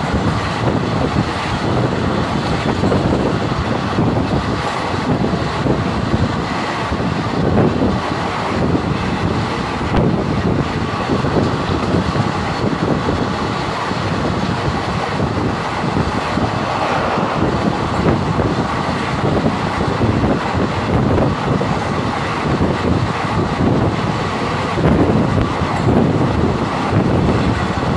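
Steady rumble and rattle of a moving vehicle, heard from inside while it travels.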